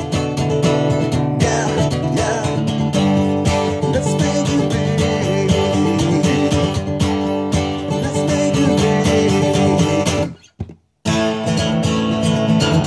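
Acoustic guitar strummed and picked through the chords of a song. The sound cuts out completely for about half a second around ten seconds in, then the playing resumes.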